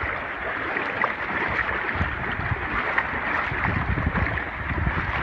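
Floodwater sloshing and splashing around a kayak, with wind rumbling on the microphone.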